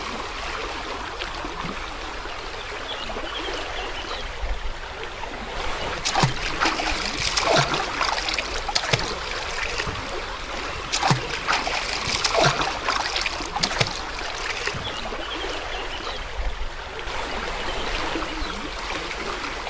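Stream water running steadily, with a run of about ten splashes of someone moving in the water between about six and fourteen seconds in.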